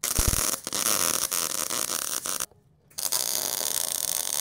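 MIG welder (Miller 252, solid wire with shielding gas) welding: a crackling buzz for about two and a half seconds, a short break, then a second weld starting about three seconds in.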